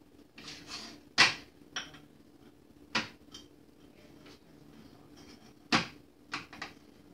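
Scraping, then a few sharp knocks and smaller clicks of a utensil or hard object against a small microwavable dish, as a chilled cheesecake is worked loose from it. The loudest knocks come a little over a second in, about three seconds in and just before six seconds.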